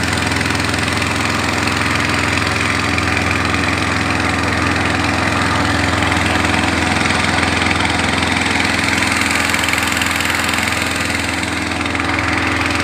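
Boat engine running steadily at an even speed, heard from on board.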